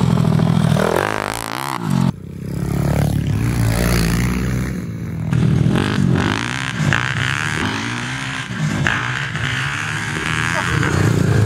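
Small four-stroke pit bike engines revving, the pitch rising and falling again and again; the sound changes abruptly about two seconds in.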